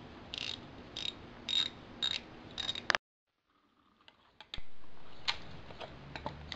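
Ratchet wrench clicking in short, even strokes about two a second while loosening the nuts on a transaxle side plate. It stops abruptly about three seconds in, after which there are only a few light metallic clicks.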